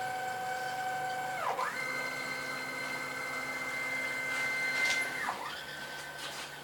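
A CNC router's axis drive motors whine steadily as the machine moves. About a second and a half in, and again about five seconds in, the whine swoops down in pitch and back up as an axis slows, changes direction and speeds up again.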